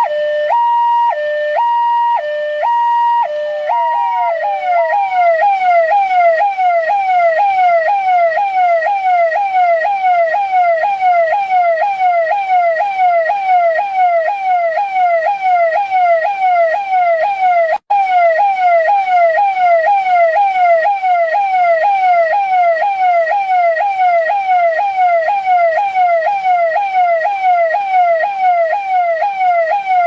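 Delhi Police electronic siren. It sounds a two-tone hi-lo, switching back and forth between two pitches, then about four seconds in changes to a fast pattern of falling sweeps, about three a second. The sound drops out for an instant about two-thirds of the way through.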